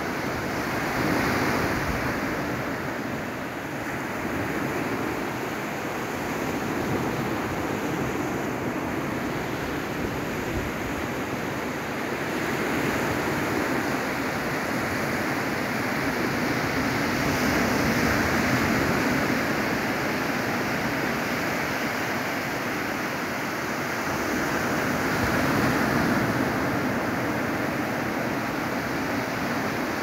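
Small waves breaking and washing up a sandy beach: a steady rush of surf that swells and eases as each wave comes in.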